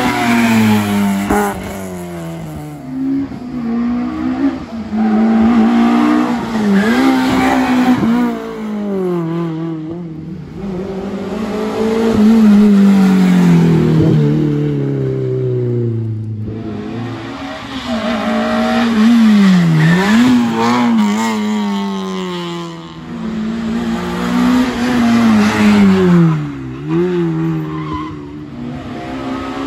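Small hatchback rally cars passing one after another at racing pace, their engines revving hard. The pitch climbs and drops again and again with gear changes and lifts for the bends.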